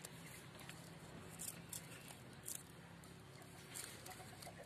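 Near-quiet background: a faint steady low hum with a few short, soft clicks scattered through it.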